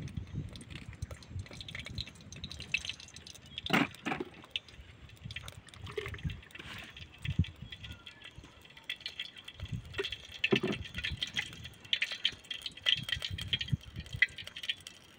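A red onion being peeled and trimmed by hand with a small knife, making small scrapes and clicks. Water is poured from a plastic jug over the onion to rinse it around the middle. There are occasional low thumps.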